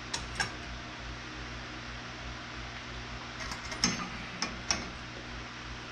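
Sharp clicks and knocks from handling the metal arm of a swing-arm lamp used as a camera mount: two near the start, then a cluster of four or five a little past the middle. Under them runs the steady hiss of an electric fan.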